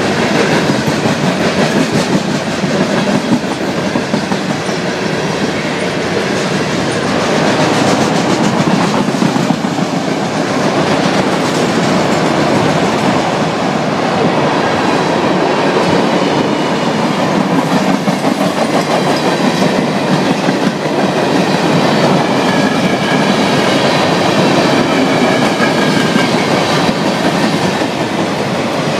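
Freight cars of a mixed train, gondolas and then autoracks, rolling past: a steady, loud rumble and clatter of steel wheels over the rails. Faint high wheel squeals come in during the second half.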